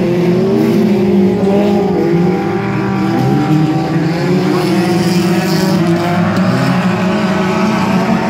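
Several dirt-track race cars' engines running together as they circle the oval. The sound is loud and steady, with overlapping engine notes that rise and fall slightly.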